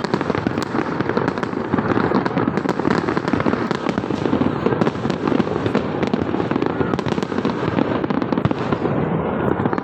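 Fireworks display: a dense, unbroken crackle of many overlapping bursts and bangs.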